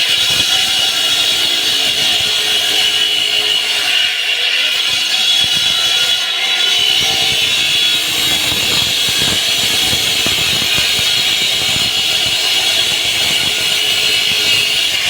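Concrete saw cutting through a slab, its blade giving a loud, steady high-pitched whine.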